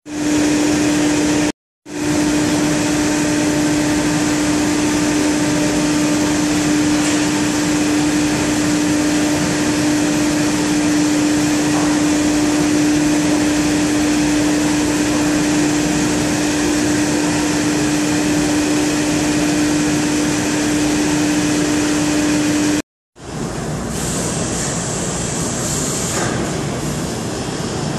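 CNC router trimming the edge of a vacuum-formed plastic part: the spindle runs with one steady tone over a loud, even machine noise. Two short gaps of silence break it, and after the second, a bit over twenty seconds in, the tone is gone and only the steady noise goes on.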